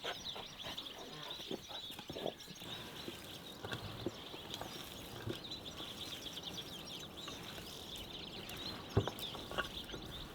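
Continuous high-pitched chirping of small animals, with scattered light knocks and taps, the most distinct one about nine seconds in.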